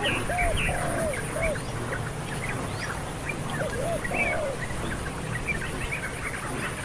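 Several birds calling: short arched calls repeated in small groups, over many high chirps, with a steady high buzz of insects behind.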